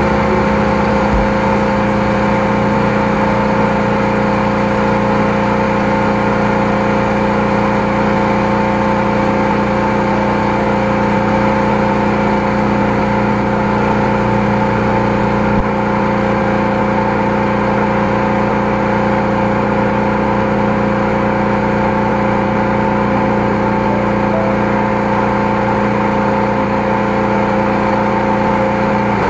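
High-pressure drain jetter running steadily while its hose is fed down a drain, the engine and pump giving a constant drone that holds one pitch throughout.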